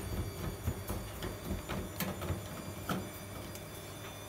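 Screwdriver taking out the screws at the back of a washing machine's top panel: irregular small metallic clicks and scrapes, stopping about three seconds in.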